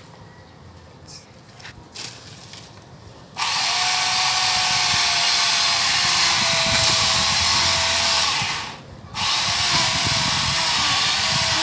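An electric angle grinder fitted with a chainsaw attachment starts suddenly and loudly about three seconds in. It saws into a dead coconut palm trunk, and its whine wavers in pitch under load. It cuts out for under a second about three-quarters of the way through, then runs again. A few faint clicks come before it starts.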